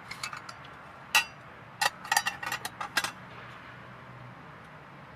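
Metal cookware clinking: one sharp ringing clink about a second in, then a quick run of clinks and clatters over the next second or so.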